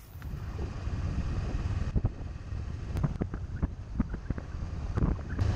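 Motorcycle riding a dirt and gravel road: a steady low engine and wind rumble on the bike-mounted camera's microphone, with scattered sharp clicks and knocks.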